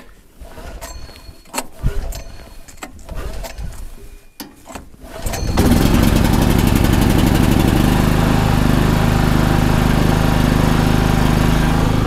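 Small gasoline portable generator engine being started cold with the choke closed, on a newly replaced carburetor. There are a few knocks and clicks from handling the machine first, then it catches about five and a half seconds in and runs steadily and loudly.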